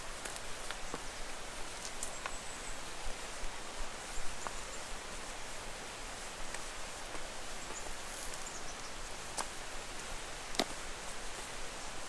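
Temperate rainforest ambience: an even rushing hiss with scattered small clicks and faint high chirps, including a short descending run of chirps about nine seconds in.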